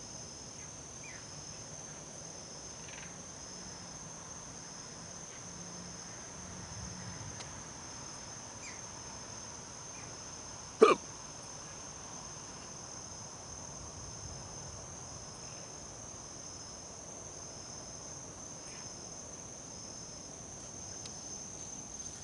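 A single loud hiccup about halfway through, over a steady high-pitched trill of night insects.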